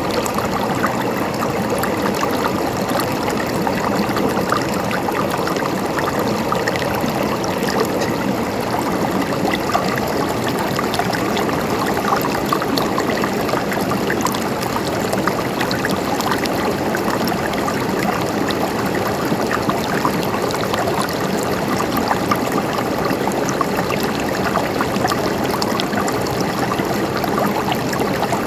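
Mountain stream flowing and gurgling steadily over rocks.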